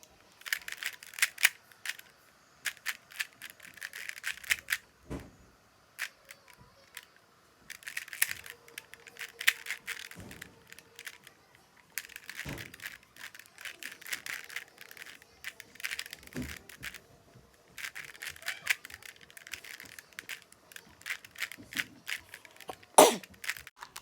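Rubik's cube being twisted quickly: bursts of rapid plastic clicking and clacking from the turning layers, broken by short pauses, with one sharper, louder clack near the end.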